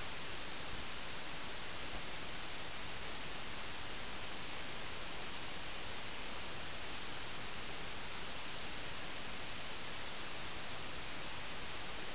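Steady, even hiss of recording noise, bright and unchanging, with no other sound.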